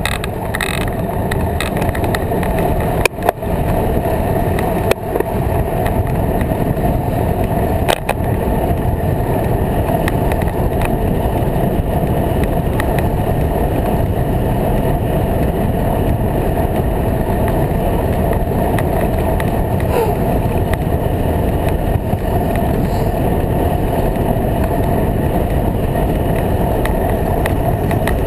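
Steady rolling rumble of a bicycle on a bridge's wooden plank deck, with a few sharp knocks about three, five and eight seconds in.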